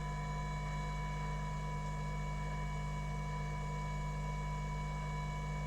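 Steady electrical hum with constant tones and a faint hiss from a hot air rework station running on the bench.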